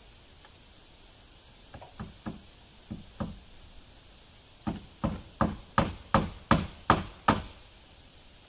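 Hammer blows on wood, as in driving a nail: a few light taps, then about eight harder strikes in quick, even succession, roughly three a second.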